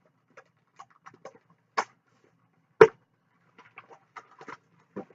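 Plastic packaging crinkling and clicking in short, irregular bits as a hair bundle is unwrapped, with one sharp snap near the middle.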